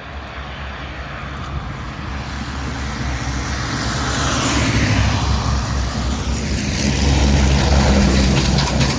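A chained semi truck driving past. Its diesel engine and tyre noise grow steadily louder as it approaches, the hiss swelling about halfway through, and the engine is loudest near the end.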